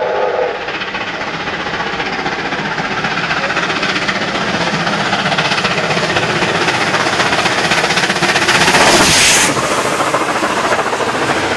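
NSW steam locomotive 3801, a streamlined C38 class 4-6-2 Pacific, running through at speed with rapid exhaust beats, its carriages rolling close behind. A short whistle note ends right at the start, and the sound is loudest about nine seconds in as the train passes closest.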